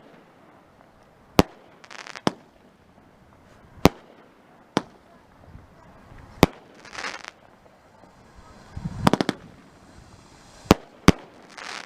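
Black Cat 'Hawk Attack' 12-shot fireworks cake going off: about eight sharp bangs of bursting shells at irregular gaps, with stretches of hissing and crackling between them.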